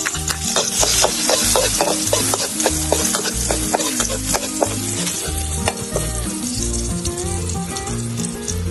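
Food frying and sizzling in a pan while being stirred, with frequent clicks of a utensil against the pan. The sizzle is loudest in the first half.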